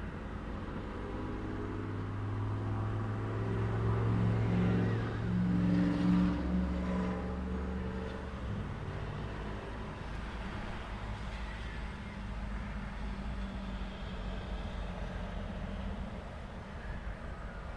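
Road traffic at an intersection. A motor vehicle's engine grows louder and passes close, loudest about six seconds in, then fades into the steady hum of traffic.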